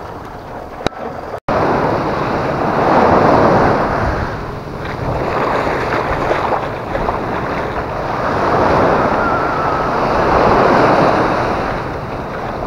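Small waves breaking and washing up a sandy shore, swelling twice, with wind buffeting the microphone.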